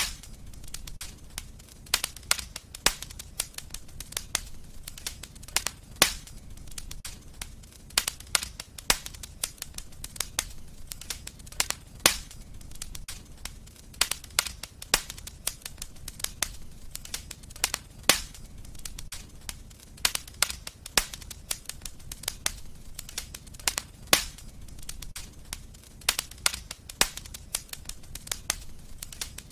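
Wood fire in a fireplace crackling: many sharp, irregular pops and snaps over a low steady rumble, with a louder pop about every six seconds.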